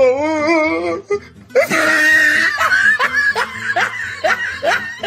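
A drawn-out, wavering vocal sound, then a person laughing hard in quick repeated bursts.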